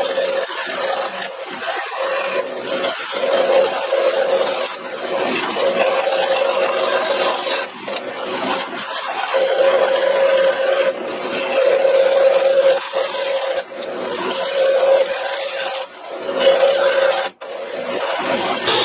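Vertical metal-cutting bandsaw running, its blade cutting a thin steel plate with a steady rasping scrape. The cutting tone comes and goes in stretches of a few seconds as the piece is fed around the curve.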